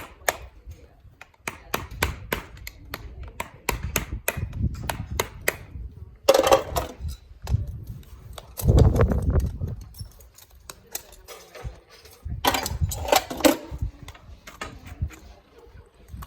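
Farrier's hand tools working on a horse's hoof: a run of quick, sharp taps about three a second, then three louder, rougher bursts about a second long each.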